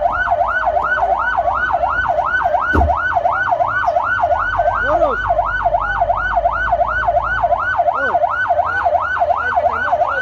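Fire-rescue vehicle's electronic siren in fast yelp mode, its pitch sweeping up and down about three times a second. Under it runs the low, steady sound of the vehicle's engine.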